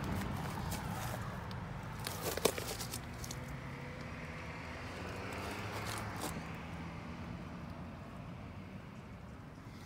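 Footsteps on pavement and the rustle of a hand-held phone as it moves around the vehicle, with scattered light clicks and one sharper click about two and a half seconds in, over a low steady hum.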